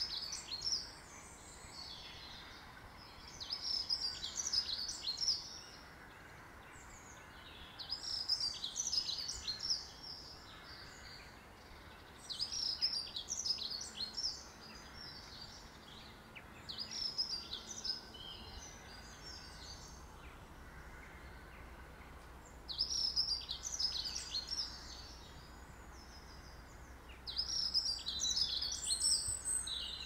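A songbird singing short, quick, twittering phrases, seven of them, each about one and a half to two seconds long and spaced about four to five seconds apart, over a steady faint background noise.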